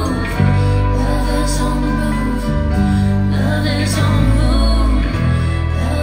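Live band music with singing, recorded in the crowd, over long held deep bass notes that change every second or so.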